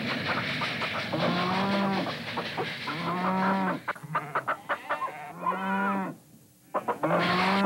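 Cow moo sound effects: about four short mooing calls, one after another, with a toy train's rolling clatter under them in the first second.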